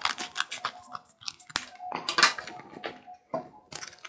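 Scissors cutting through a paper envelope: a quick run of crisp snips and paper crackle, in clusters, with paper rustling near the end as the envelope is handled.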